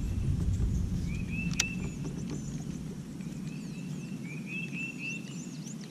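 Birds calling: repeated short chirping phrases and thinner high calls, over a steady low rumble. A single sharp click about a second and a half in.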